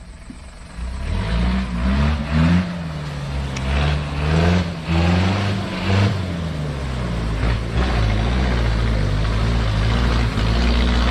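Off-road 4x4's engine revving up and down under load as it drives through a deep mud wallow, with bursts of muddy water churning and splashing around the wheels.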